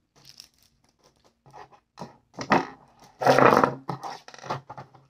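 Plastic packaging being handled and opened: a run of short scratchy rustles and crinkles, with two louder tearing bursts about halfway through and a second later.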